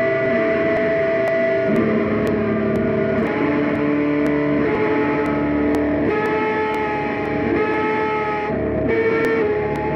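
Instrumental passage of a rock song played live, led by electric guitar through distortion, holding long notes that change every second or two.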